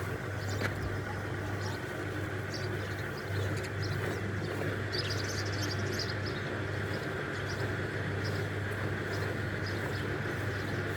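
A steady low mechanical hum, with faint, irregular hissing streaks of milk squirting into a pail as a Gir cow is milked.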